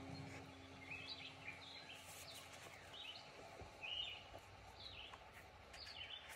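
Faint bird chirps, short calls repeating about once a second over quiet outdoor background noise, with a soft handling sound about four seconds in.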